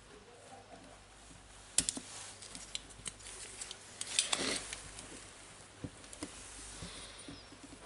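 Small clicks and scrapes from desoldering the old motor's wire joints in a drill housing, with a soldering iron and a desoldering pump. There is a sharp click about two seconds in, and a cluster of clicks and scraping around four seconds in.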